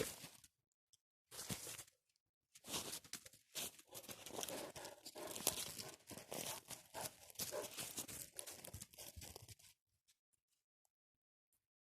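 Irregular crunching and rustling, like dry forest-floor litter being disturbed, coming in uneven bursts with short gaps and stopping about ten seconds in.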